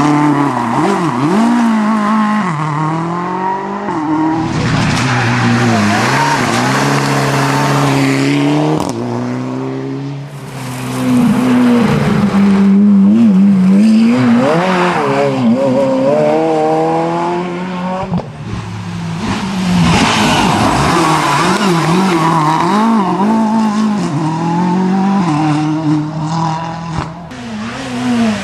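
Rally cars taking tarmac hairpins one after another, about three passes, each engine revving hard, dropping with quick gear changes and rising again as the car accelerates out of the bend.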